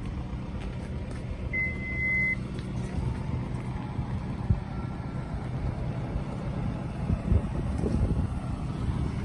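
Vehicle engine idling with a steady low hum. A single short, high-pitched electronic beep, under a second long, sounds about two seconds in.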